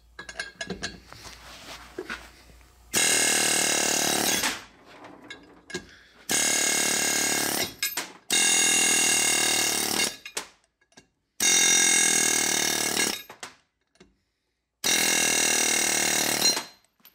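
A power tool run in five buzzing bursts of about two seconds each, with short pauses between them.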